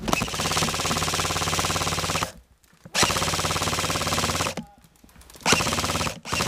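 Airsoft rifle firing on full auto in three long bursts of rapid shots, each one to two seconds, with short pauses between.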